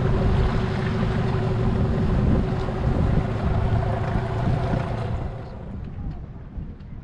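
Boat motor running steadily with rushing wind and water, dropping away sharply about five seconds in.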